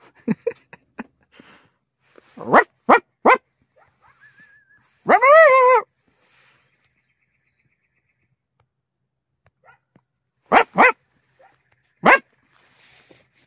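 Coyote barking and howling: a few quick yips, three sharp barks in a row, a single wavering howl about five seconds in, then more barks near the end.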